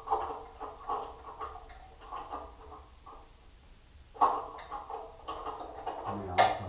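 Irregular metallic clicks and clinks of a wrench turning the adjustment bolt on a bandsaw's lower wheel, with a louder sharp knock about four seconds in and another near the end.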